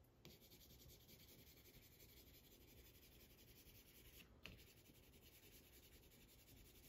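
Faint scratching of a Prismacolor pencil stick shading color onto a foam-core drawing board, with one short click about four and a half seconds in.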